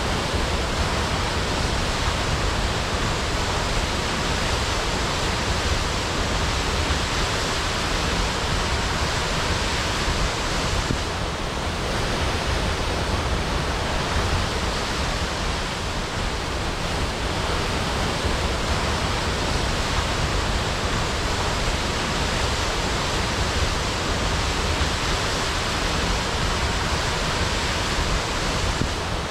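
Waterfall: a steady, dense rush of falling water, with no breaks or separate events.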